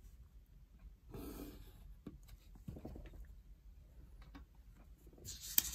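Faint scratch of a pen drawing a line along a ruler on paper about a second in, with light handling taps; near the end, paper rustling and a sharp tap.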